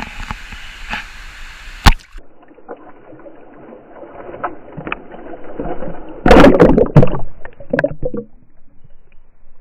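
Water sloshing and splashing close by as a smallmouth bass is let back into the river, with a loud burst of splashing about six seconds in and smaller splashes after it. A sharp knock comes about two seconds in.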